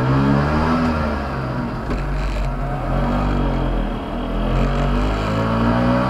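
Piaggio Ape 50's small two-stroke single-cylinder engine pulling away, heard from inside the cab. Its note rises and falls a couple of times as it accelerates.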